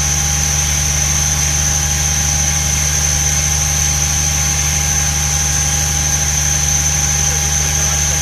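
Six-cylinder diesel engine of a boiler feed-water pump running steadily, with a constant high whine over its low drone.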